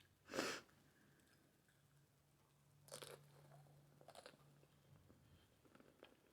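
Close-up eating sounds from biting into and chewing a crunchy taco. A sharp crunch comes about half a second in, two more crunches follow around three and four seconds in, and softer chewing clicks come near the end.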